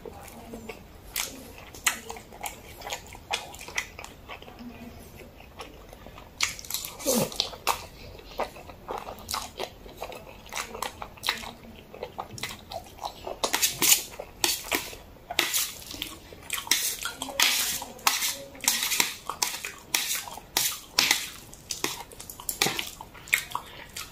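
Close-miked eating sounds: a man chewing and slurping black-bean sauce noodles (jajangmyeon), with irregular wet smacks and clicks of chopsticks against a steel tray, denser and louder past the middle.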